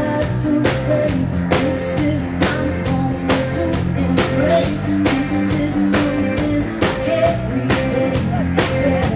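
Live rock band playing a song, with a drum kit keeping a steady beat under guitar and other instruments.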